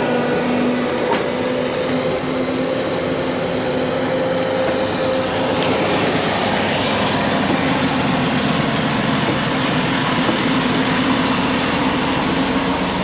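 Loud, steady machinery noise: a large engine or machine running, with a low hum that wavers slightly in pitch.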